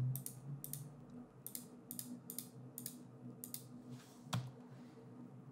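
Computer mouse clicking, about two short clicks a second, as points are placed one by one with Blender's knife tool around a window outline. Underneath is a faint steady hum.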